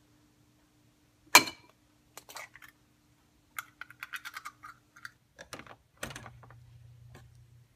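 An egg cracked sharply once on the rim of a ceramic bowl, followed by scattered small clicks and ticks of the shell being pulled apart over the bowl. Near the end a click as an electric stove knob is turned, then a low steady hum.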